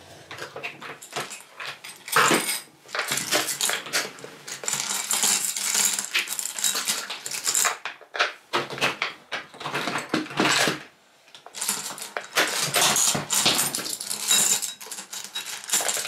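Small seashells and pebbles clattering and clicking as they are dropped one after another into a plastic bottle, in a run of irregular rattles with a short lull about eleven seconds in.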